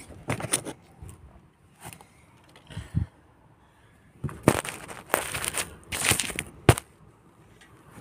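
Handling noise from a phone being moved about and set down: irregular scrapes, rubs and crunches against the microphone. The densest cluster comes between about four and a half and seven seconds in, ending in one sharp knock.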